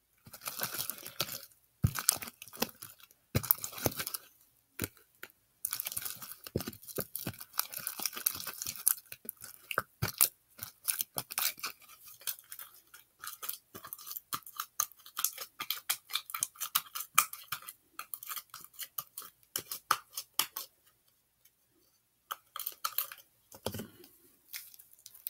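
Thick glue slime being stirred and worked in a plastic container, giving a dense run of sticky wet clicks and crackles. The clicks pause briefly about three-quarters through, then a few more follow.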